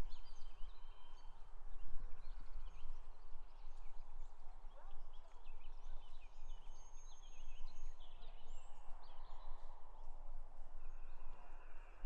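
Small birds chirping and singing in scattered short calls, over a low rumble.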